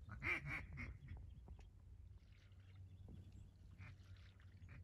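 Duck quacks: a quick run of short quacks near the start, then a few fainter, scattered ones.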